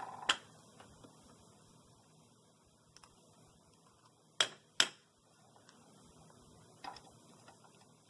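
Small sharp metal clicks and taps of needle-nose pliers and a soldering iron being handled while desoldering a capacitor lead from a circuit board, with two louder clicks in quick succession about halfway through and a few fainter ones around them.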